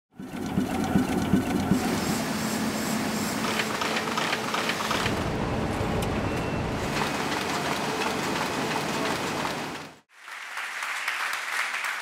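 Printing press machinery running steadily, cutting off suddenly about ten seconds in; a quieter haze of audience noise follows.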